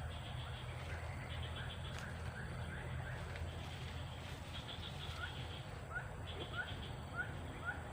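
A bird repeating short rising chirps, about two a second, over a fast pulsing trill higher up and a steady low hum.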